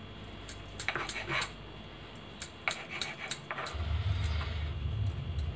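Knife cutting through rolled bread pinwheels and knocking on a wooden chopping board: a scatter of light clicks and taps. A low steady hum comes in about two-thirds of the way through.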